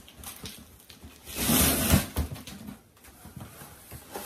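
Packaging being handled during an unboxing: a loud rustle lasting under a second, about a second and a half in, with smaller knocks and rustles around it.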